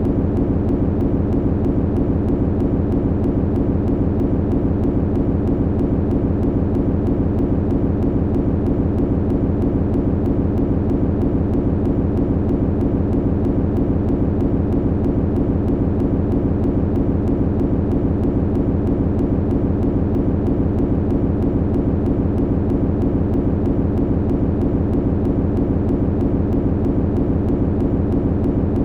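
Steady, low machine hum, unchanging and continuous.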